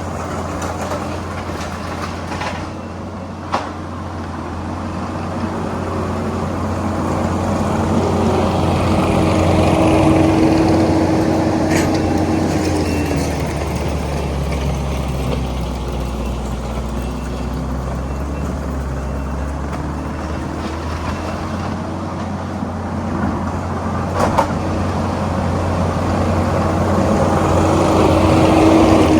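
Tractor engine running under load while working the ground, the revs swelling and easing, with a few sharp knocks from the machinery.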